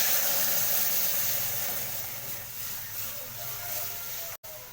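Loud sizzling hiss from a pot of dal on the stove, starting suddenly and slowly fading.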